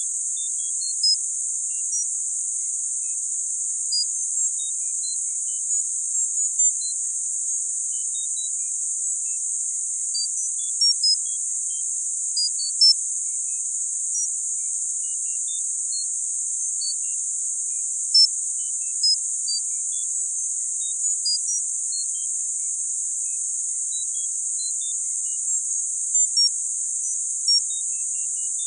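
Tinnitus masking audio: a steady, high-pitched hiss of filtered noise, with short high pings scattered irregularly beneath it, a few every couple of seconds. Two of the pings stand out louder than the rest, about 13 and 18 seconds in.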